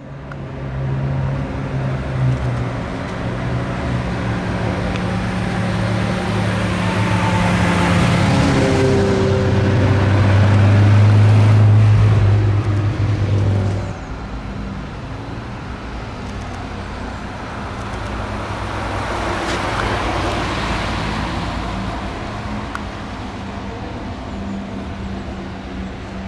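Car engines running as sports cars drive slowly past, with deep steady engine notes. One swells to the loudest point about halfway through and drops off suddenly, then another swells and fades near the end.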